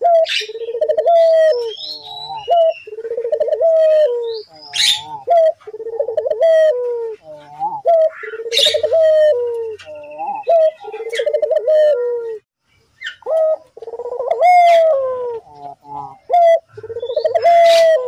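Barbary (ringneck) dove cooing over and over, each coo about a second long and falling in pitch, with a short pause about twelve seconds in. Small birds chirp higher above it.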